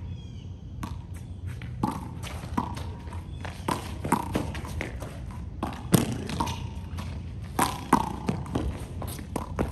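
A Chinese handball rally: a rubber handball smacking off the concrete court, the cinderblock wall and players' open hands. Many sharp hits, each with a short ring, come at an uneven pace of about one or two a second, with the loudest about six and eight seconds in.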